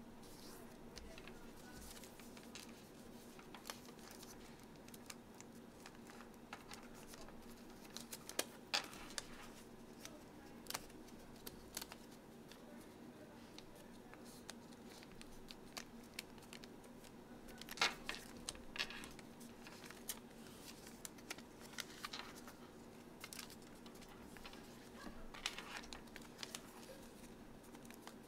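Sheets of origami paper rustling and crinkling as they are folded and creased by hand, with scattered small crackles and taps, the loudest about two-thirds of the way through, over a faint steady hum.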